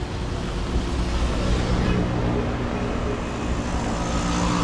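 Road traffic: a motor vehicle's engine running close by, its hum standing out more in the second half, over a steady hiss of traffic.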